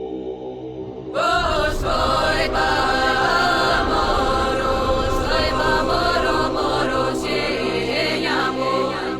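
Music with chanted choral vocals: a held drone that swells about a second in into louder singing over a beat.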